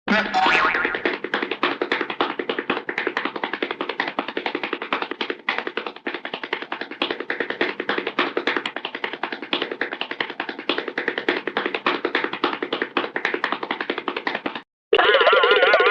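Hanna-Barbera cartoon sound effects: a brief boing at the start, then a long run of rapid tapping, the classic cartoon running-feet effect. Near the end the tapping stops, and after a short gap a wobbling boing begins.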